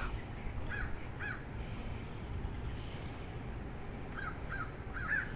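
A bird calling in short, arched calls: three spaced out in the first second and a half, then a quicker run of five near the end, over a low steady background rumble.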